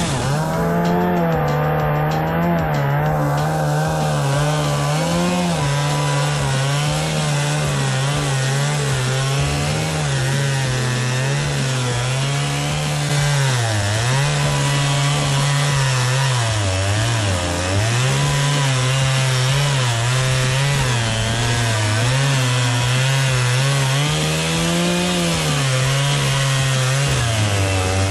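Chainsaw running at high throttle while ripping a log lengthwise into slabs, guided by a steel slab-cutting jig. The engine note wavers throughout and dips several times as the saw loads up in the cut.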